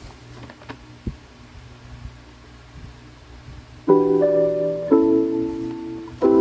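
Background chill-beat music with piano chords: quiet for the first few seconds, then a chord struck about four seconds in, another a second later, and a third near the end.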